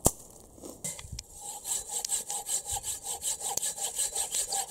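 Hand saw cutting through a thin wooden pole in fast, even back-and-forth strokes that start about a second and a half in, after a single sharp knock at the very start.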